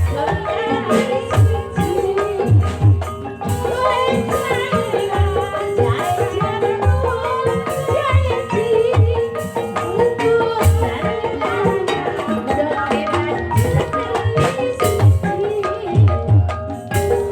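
Live Banyumas ebeg accompaniment music: a gamelan ensemble with sustained metallic tones and irregular strokes on a kendang hand drum.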